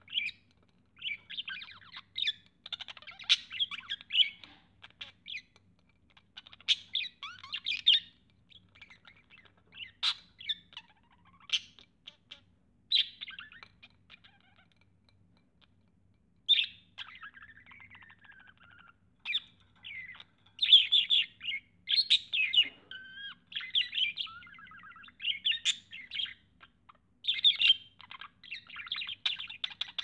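Male budgerigar warbling and chattering at its own reflection in a hand mirror: quick chirps, clicks and squawks in bursts with short pauses, dropping out for a couple of seconds near the middle.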